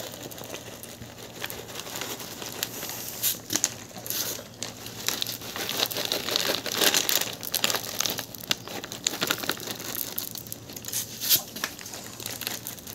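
Red plastic cat-food bag crinkling in a hand in irregular bursts as dry kibble is shaken out of it.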